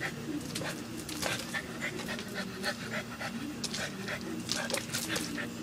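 A dog panting while it noses about over loose stones, with irregular small clicks and crunches from the gravel throughout.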